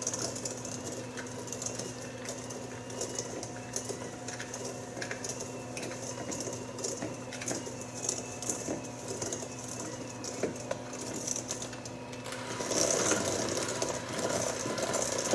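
Electric hand mixer running, its beaters whipping cheesecake filling in a metal bowl: a steady motor hum with light clatter. It grows louder near the end.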